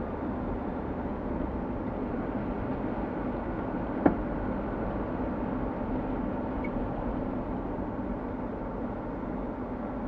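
Steady road and engine noise inside a moving car, with a single sharp click about four seconds in.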